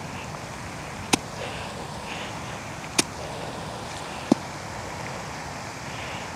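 Sharp clicks of a golf club striking balls on short pitch shots, three in all, a second or two apart, over a steady background hiss.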